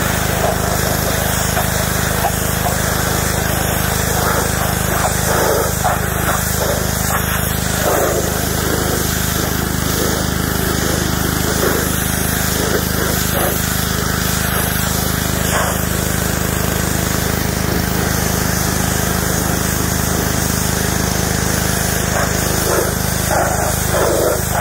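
Pressure washer running steadily: a constant low hum from its motor under the hiss of the water jet spraying across a car's molded floor carpet.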